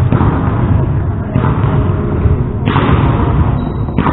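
Reverberant gymnasium noise between volleyball rallies: dull thuds on the wooden court under a steady rumble and indistinct voices.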